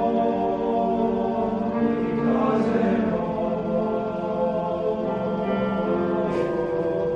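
Men's choir singing in harmony, holding long sustained chords, with a brief hissing consonant twice, about two and a half seconds and about six seconds in.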